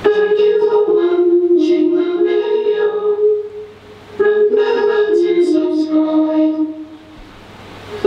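Korg synthesizer keyboard playing a slow phrase of held chords, the lowest note stepping down in pitch. The phrase fades a little past the middle and starts again about four seconds in, fading once more near the end.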